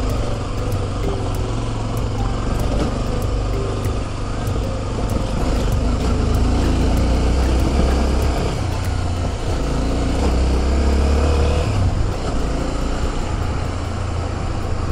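Motorcycle engine running on the move, its pitch drifting up and down a little in the middle, over a heavy low rumble of wind on the microphone.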